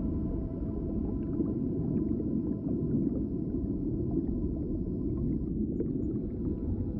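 Underwater-style ambient soundscape: a steady deep rumble of water with sustained drone tones held over it and faint scattered bubbling ticks.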